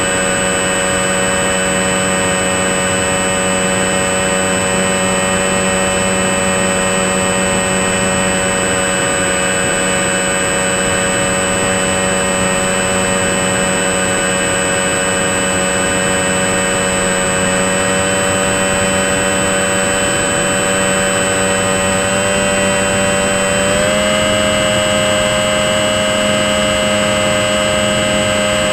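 RC model plane's motor and propeller running steadily in flight, heard from on board as a constant whine. Its pitch steps up slightly about three-quarters of the way through as the throttle is raised.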